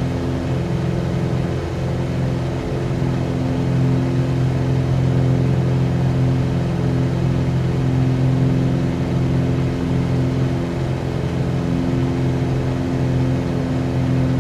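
Cessna 182Q's six-cylinder Continental O-470 engine and propeller running steadily at low power after landing, a constant drone.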